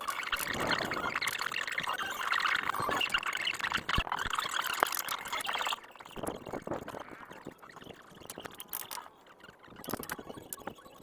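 Rain falling in a steady hiss that drops away sharply about six seconds in, leaving a quieter patter with scattered ticks.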